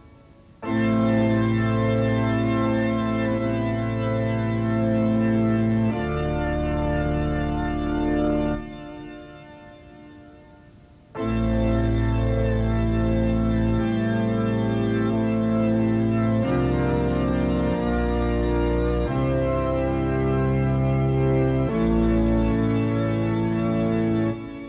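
Background music of long held organ chords over a deep bass. The first chords enter sharply about half a second in and break off after about eight seconds. The music returns suddenly a few seconds later, moving to a new chord every second or two before cutting off near the end.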